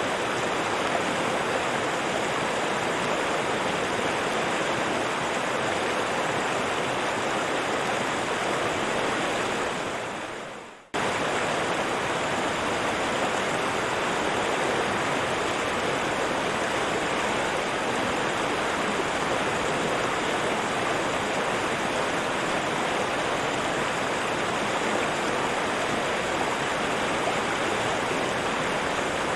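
River water rushing steadily over rocks. About ten seconds in, the sound fades out and then cuts abruptly back in at full level, a loop splice in the recording.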